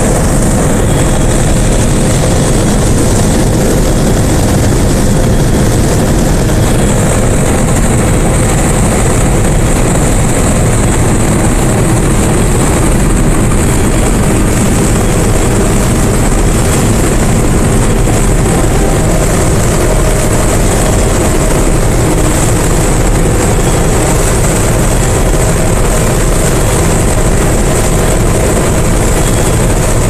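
D80 combine harvester running steadily under load while harvesting soybeans: a loud, even drone of engine and threshing machinery, heard from inside the cab.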